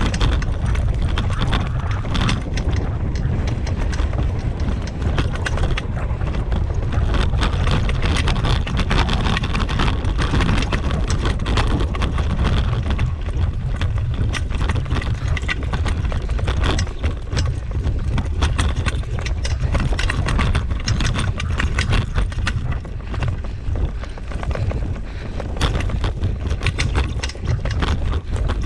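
A rig pulled by two Siberian huskies rolling fast over a bumpy dirt trail: a steady low rumble with many quick rattles and knocks.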